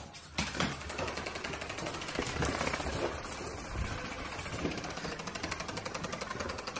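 Battery-powered fuzzy toy ball's vibration motor running, a fast steady rattling buzz as the toy is set off.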